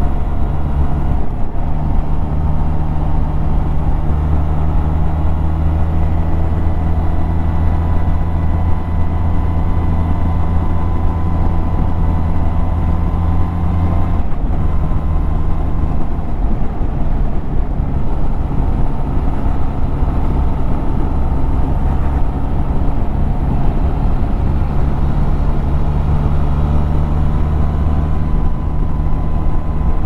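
Benelli TRK 502's parallel-twin engine running steadily under way, heard from the rider's seat. The engine note shifts down briefly around the middle, then holds steady again.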